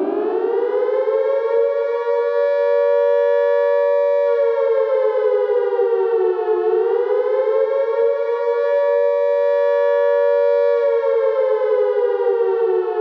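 Air-raid siren sound effect wailing: its pitch climbs over the first couple of seconds, holds, dips about halfway through and rises again, then begins to fall near the end.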